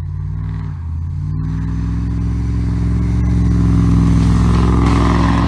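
Piped Can-Am ATV engine running loud through its open exhaust, revving up: the pitch and loudness climb slowly, then hold steady near the end.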